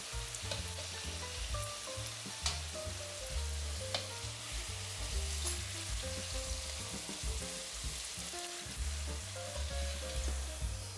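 Oil sizzling steadily in a pan as flour dough fries, with a couple of sharp clicks. Background music plays over it.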